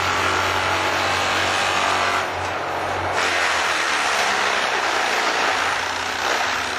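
TimberPro TB630 forestry carrier's diesel engine running under load while its Risley mulcher head grinds into standing trees: a steady machine din with a hiss of chipping wood over it. The chipping noise thins out briefly about two seconds in, then comes back.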